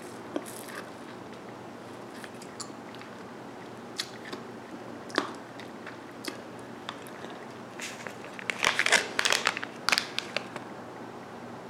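Close-up mouth sounds of someone sucking and licking a hard-candy lollipop coated in sour powder: scattered wet clicks and smacks, then a louder crackling stretch of about two seconds near the end.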